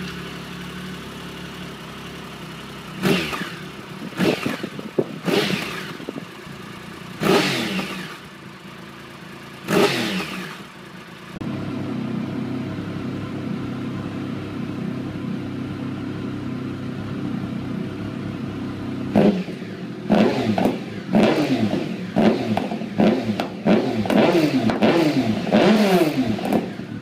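Triumph Sprint 1050's inline three-cylinder engine through its standard exhaust, idling and blipped by the throttle: single revs that die back to idle, a steadier, raised idle in the middle, then a quick run of blips about once a second near the end.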